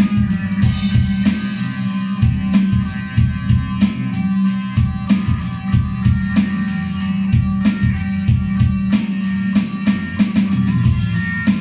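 Electric guitar played through a pedalboard and amplifier over a drum track with a steady beat.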